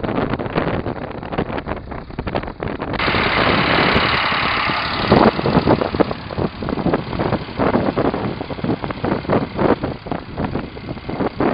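Tractor engine running under load while a rotary tiller churns through a flooded paddy field, with the slosh and splash of water and mud. About three seconds in the sound changes abruptly to a denser hiss of churning water.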